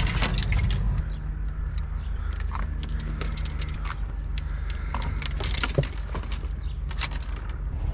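Fishing rods and reels clicking and rattling as they are handled and carried, over a steady low engine hum.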